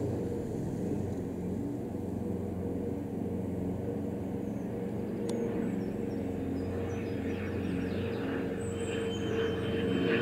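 A steady low mechanical hum with several held tones, unchanging throughout, with faint short high chirps in the second half.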